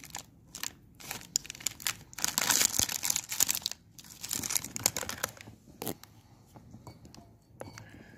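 Foil-lined plastic biscuit packet crinkling and tearing as it is opened by hand, in a run of crackles that is loudest in the middle, then a few lighter rustles as a biscuit is taken out.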